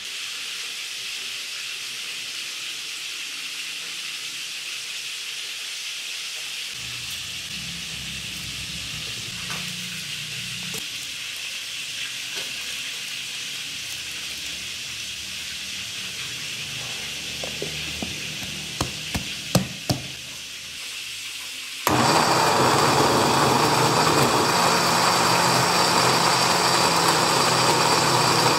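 Electric countertop blender switched on near the end and running steadily under load as it purées chillies into sambal. Before it starts there is only a faint hiss and a few sharp clicks and knocks.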